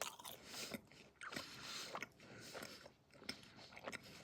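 A person chewing a mouthful of microwaved burrito and pizza rolls close to the microphone, with irregular mouth clicks and smacks.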